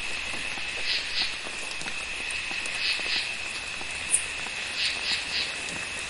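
Rainforest insects keeping up a steady high drone after a storm has passed, with frog calls coming in quick groups of two or three notes about every two seconds. A single short sharp high click about four seconds in stands out as the loudest sound.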